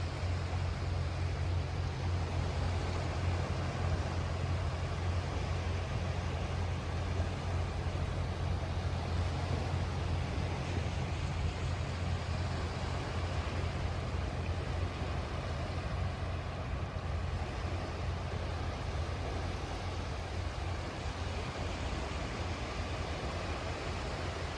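Sea surf: a steady wash of waves with a strong deep rumble underneath, growing a little quieter near the end.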